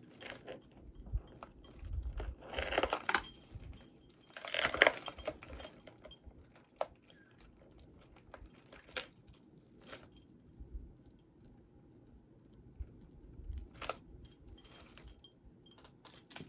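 Beaded jewelry being handled: scattered clicks, clinks and rustles, with two louder bursts of clattering a few seconds in and a few sharp clicks later.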